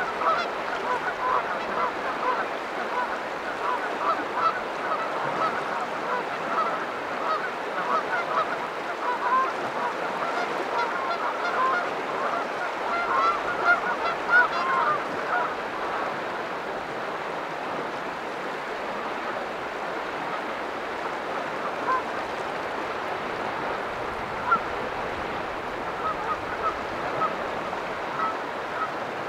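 Canada geese honking, many short calls overlapping at first and thinning out to scattered honks about halfway, over a steady wash of water.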